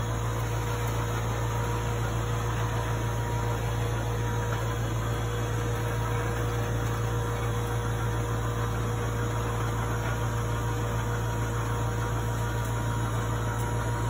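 Ladder hoist's motor running steadily, a hum with a faint whine, as it lowers its platform carrying a man down the ladder; the whine stops at the very end.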